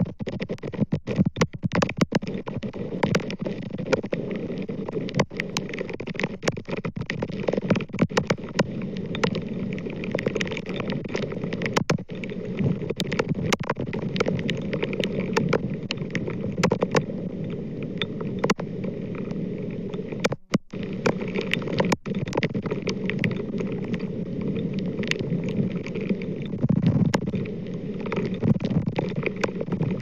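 Strong storm wind buffeting an outdoor camera microphone: a steady rushing rumble with frequent sharp crackles and pops. It briefly cuts out about two-thirds of the way through.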